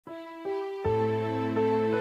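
Gentle background music of held notes: a few notes enter one after another and a low bass note joins just under a second in.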